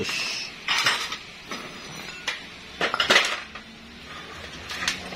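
Aluminium engine parts, a two-stroke motorcycle piston and cylinder block, clinking and knocking as they are handled and set down on a concrete floor: several separate metallic knocks, the loudest about three seconds in.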